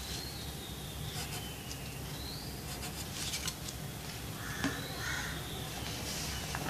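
Birds calling faintly in the background: short gliding whistles and a couple of brief calls. There are light scrapes and one sharp tap about halfway through as drawing tools are moved on paper.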